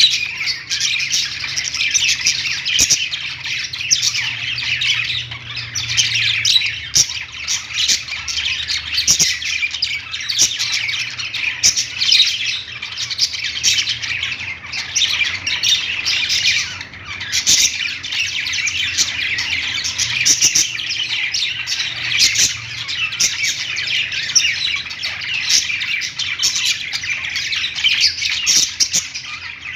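A flock of budgerigars chirping all at once: a dense, unbroken chatter of many overlapping high calls.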